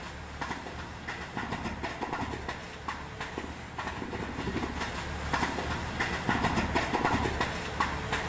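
Heavy machinery running with a low rumble and irregular rattling, getting louder over the last few seconds.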